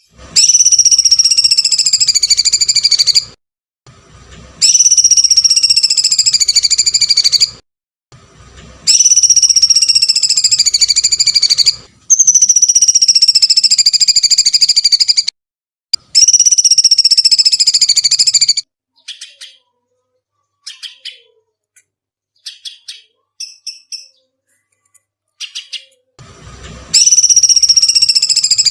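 A caged songbird's shrill, drawn-out screeching calls, each about three seconds long and falling slightly in pitch, repeated five times with short gaps. A stretch of short, scattered chirps follows, then one more long screech near the end. These are the piercing, scream-like calls that bird keepers call 'jeritan kuntilanak', played as training song.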